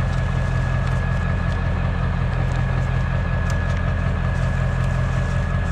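A steady low mechanical hum, like an idling engine, with a thin high whine held over it.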